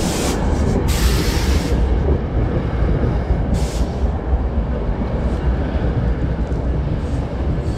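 Six-car commuter train on the Pascack Valley Line rolling into the station alongside the platform: a steady heavy rumble of wheels and cars, with a few short hisses.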